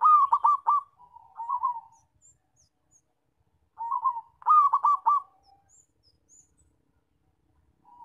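Zebra dove (perkutut) singing: two phrases of its rhythmic cooing song about four seconds apart, each a quick run of four loud ringing notes followed by softer, trailing coos.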